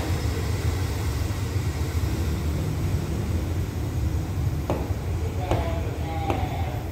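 Diesel-hauled passenger train pulling away, a steady low rumble that slowly fades as it recedes. A few faint short clicks come in the last couple of seconds.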